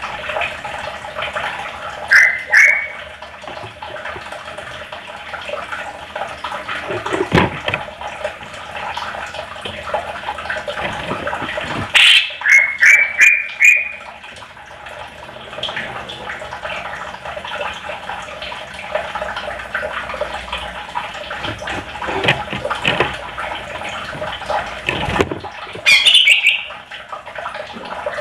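Green leafbird (cucak ijo) singing a continuous rapid chattering song. Loud, short rising whistles cut through it: a pair about two seconds in, a run of four about halfway through, and another near the end.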